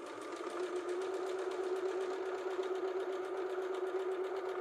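Electric sewing machine running steadily at sewing speed, with a hum and a rapid, even stitch rhythm, as it stitches invisible zipper tape onto fabric.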